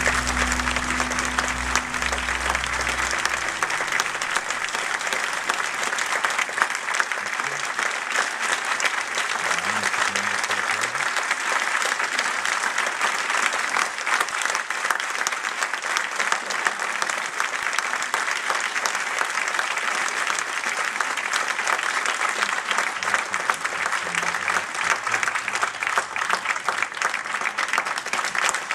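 Audience applauding steadily, the dense clapping of a full hall. The last notes of the music fade out in the first few seconds.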